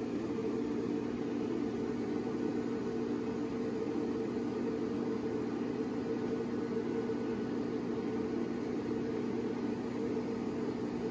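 The built-in blower fan of a Gemmy 6 ft inflatable ghost trio running with a steady, even hum as it inflates the figure.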